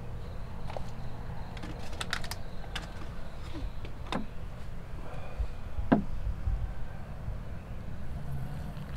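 Things being handled on a camp table: scattered light clicks and knocks of cups, plastic packaging and a stainless electric kettle, with two quick falling squeaks at about four and six seconds in, over a steady low rumble.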